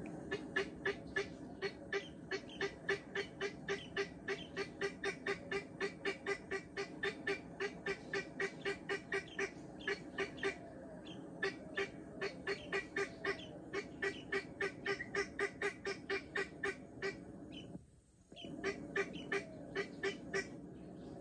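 Guineafowl cackling: a fast, even series of harsh call notes, about four a second, with one short break near the end.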